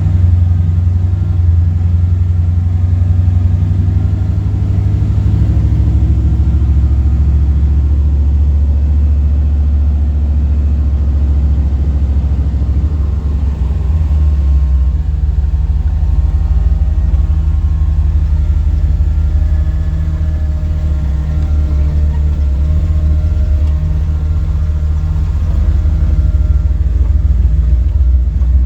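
Jeep engine running under way at a fairly steady speed: a loud, low drone with road rumble, its pitch easing up and down gently.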